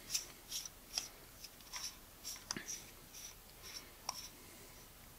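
Rubber cone tool being twisted against the front identification-plate ring of an EL-Nikkor 50mm f/2.8 enlarger lens to unscrew it: a string of faint, short scratchy rubs and ticks, roughly two a second.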